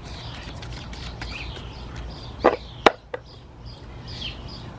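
Tarot cards snapping as the deck is shuffled in the hands: two sharp snaps about half a second apart, with a fainter click just after. Birds chirp faintly in the background.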